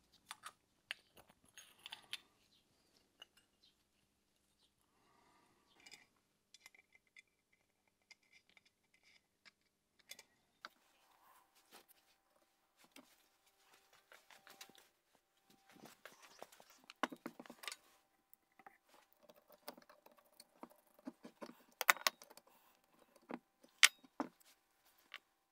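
Light metallic clicks and clinks of small carburetor parts and hand tools being handled during disassembly. They come sparsely at first, with a few louder clusters of clinks in the second half.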